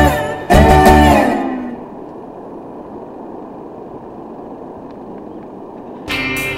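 Background music: a guitar-led country track ends on a held chord that fades out, leaving a few seconds of quieter steady low rushing noise, before a rock track with drums starts near the end.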